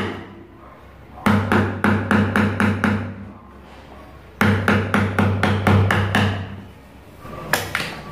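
A metal chisel wedged under the rim of a plastic paint-bucket lid is struck in two runs of quick knocks, about four a second, and the bucket rings hollow with each blow as the blade is driven in to pry the stuck lid loose. A few lighter knocks follow near the end.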